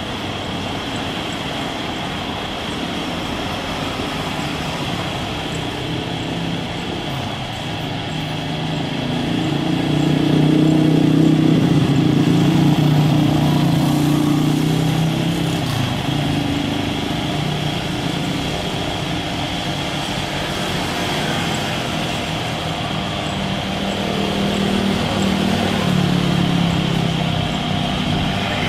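Airbus A320neo's twin jet engines at takeoff power during the takeoff roll: a steady jet noise with a low hum. It grows louder about ten seconds in as the plane passes closest, then eases a little and swells again as it lifts off near the end.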